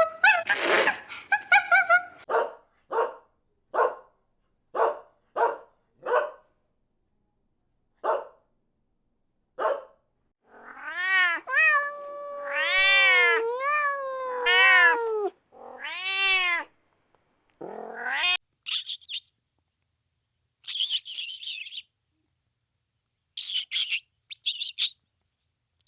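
A string of animal calls: short calls repeated about every second, then several drawn-out, rising-and-falling meows, then high chirps near the end.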